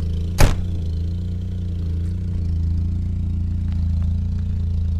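Opel Calibra engine running steadily at an even speed through an exhaust that has a hole in it. One sharp knock about half a second in.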